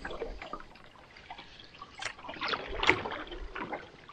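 Canoe paddle strokes in lake water: the blade dipping and pulling, with splashing and water dripping off it, the louder strokes coming about two and three seconds in.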